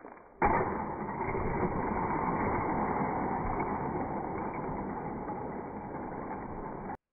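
A domino building is struck by thrown plastic army men and collapses: a sudden crash about half a second in, then a dense, steady rumbling clatter that cuts off abruptly near the end.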